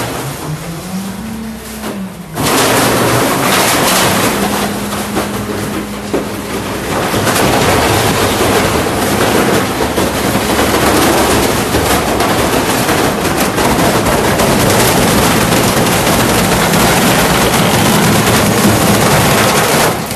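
Rear-loader garbage truck's hydraulic packer crushing hard objects in the hopper: the engine revs up and back down, then from about two seconds in comes a long run of loud cracking and crunching over the steady engine.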